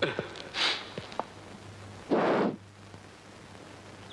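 A man's breath sounds: a short sniff, a couple of small clicks, then a loud rush of breath lasting about half a second, over a faint steady hum.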